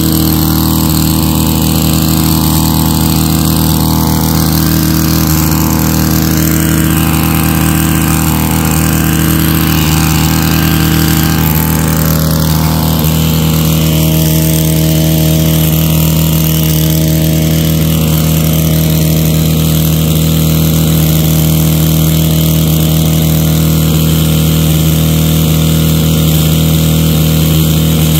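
Stihl KM 131 R KombiMotor's small 4-MIX engine running at a steady, unchanging speed while driving a power scythe attachment.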